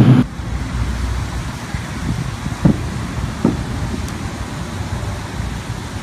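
Two short distant booms, a little under a second apart, heard over a steady low rumble like traffic noise, recorded on a phone; these are the unexplained 'sky booms' reported around the world. A louder low rumble cuts off right at the start.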